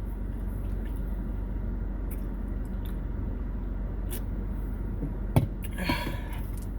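Eating pho over a steady low hum: a few faint clicks, a sharp click about five seconds in, then a brief slurp.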